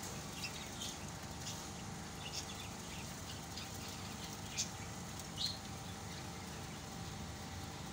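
Quiet aviary ambience: a steady low hum with about six short, faint high chirps or ticks scattered through it, from the diamond doves around their feed.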